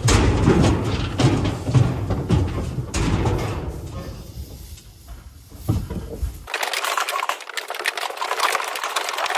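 Cattle coming off a stock trailer through a steel loading chute: hooves clatter and knock on the metal floor and ramp over a low rumble. About six and a half seconds in this gives way to a lighter rustling.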